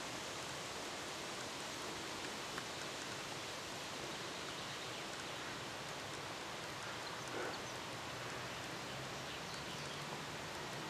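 Steady outdoor background hiss, even and unbroken, with a brief faint sound about seven and a half seconds in.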